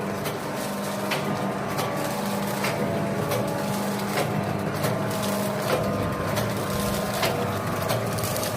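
Sprinter 125 automatic sachet filling and packing machine for milk powder running: a steady motor hum with a sharp clack about every 0.7 seconds as it cycles through filling and sealing.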